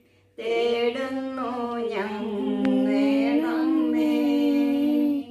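A woman singing a slow Malayalam hymn to Mother Mary without accompaniment, in long-held notes that drift gently in pitch. It resumes after a brief breath about half a second in and stops near the end.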